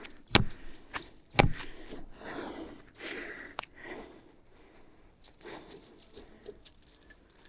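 Two sharp knocks about a second apart, then small metal pieces jingling and clinking from about five seconds in.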